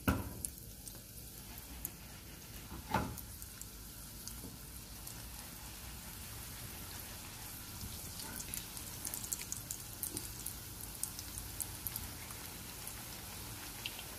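Samosa rolls frying in oil over a low flame: a steady gentle sizzle with scattered crackling pops that become more frequent in the second half. Two knocks, one at the very start and one about three seconds in.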